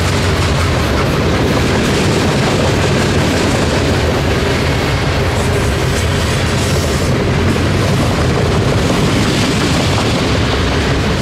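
Freight train of loaded centerbeam lumber flatcars rolling past at close range: a loud, steady noise of steel wheels on the rails and the cars rattling.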